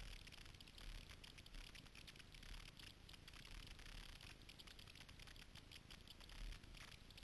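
Faint pattering and dripping of water from kayak paddle strokes, with water lapping at the hull, heard as a dense run of small ticks over a low rumble.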